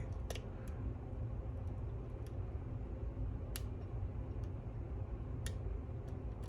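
A lock pick working the pins inside a lock: a few faint, sharp clicks, spread out, over a steady low hum.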